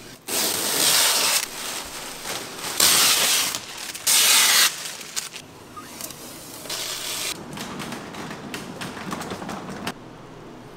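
Protective plastic film being peeled off a new car's door sill: three loud crackling tears, the first about a second long, then softer rustling.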